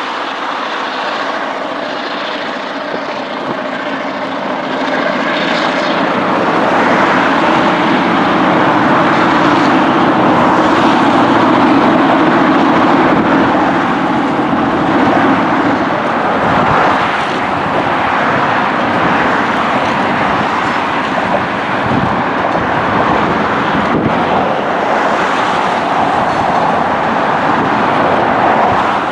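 EMD 567 diesel prime mover of a GP9RM locomotive running under load as it pulls past, its steady drone growing louder about five seconds in and dropping away after the middle. Then the rolling rumble of tank cars going by.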